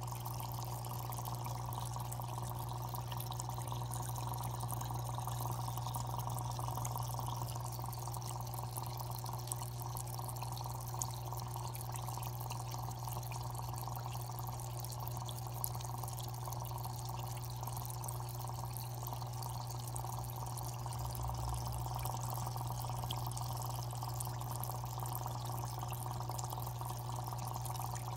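Aquarium water trickling and dripping steadily over a constant low hum.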